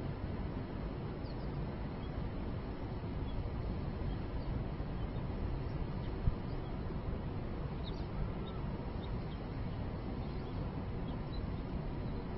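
Steady low city background rumble, with faint short high bird chirps scattered through it and one brief knock about six seconds in.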